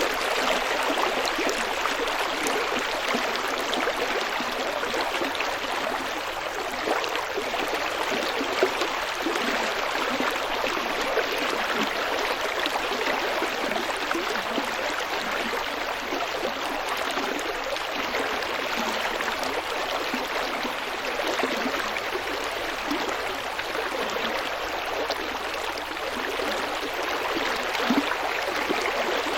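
Small forest stream flowing steadily, water splashing and gurgling over stones in an even, unbroken rush.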